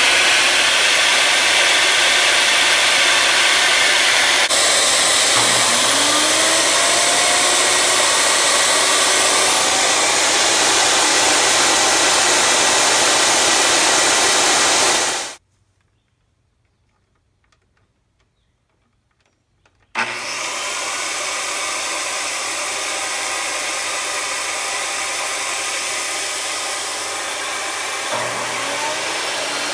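Homemade double-blade table-saw board edger running with a loud steady motor noise. It cuts off abruptly about fifteen seconds in, is silent for about five seconds, then starts up again and runs on.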